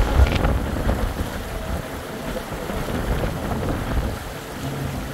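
Wind buffeting the microphone on the open deck of a large cruise ship, a steady low rumble, with a brief bump right at the start.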